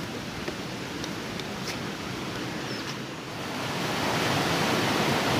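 Quiet outdoor background with a few faint, short high chirps, then, a little past halfway, the louder steady rush of a small waterfall pouring into a river pool takes over.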